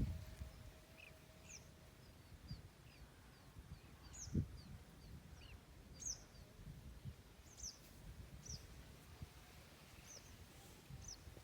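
Faint birds chirping outdoors: many short, high chirps scattered throughout, with an occasional low thump, the loudest about four seconds in.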